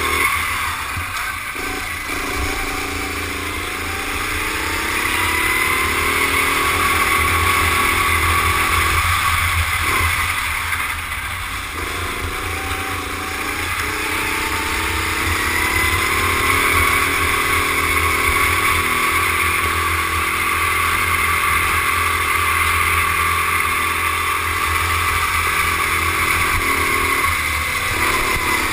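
Rental go-kart engine heard onboard at racing speed. The revs climb steadily down the straights and fall away three times as the kart slows for corners, one of them near the end.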